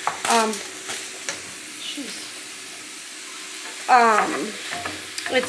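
Sausage browning in a frying pan, sizzling steadily, with a voice heard briefly twice.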